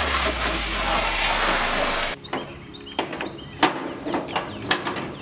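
Pressure washer spraying a plastic mower hood: a loud, steady hiss of water over a low motor hum, which cuts off abruptly about two seconds in. After it come a few sharp clicks and knocks as the plastic hood is handled, with birds chirping faintly.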